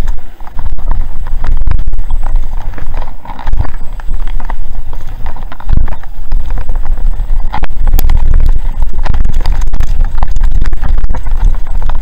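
Mountain bike running fast downhill over a gravel trail: a heavy, loud wind buffeting on the microphone, with tyres crunching on loose stones and the bike's frame and chain rattling in many sharp knocks over the bumps.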